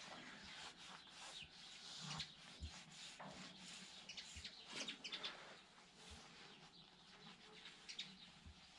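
Faint small-bird chirps over quiet outdoor ambience, with a cluster of quick chirps about halfway through.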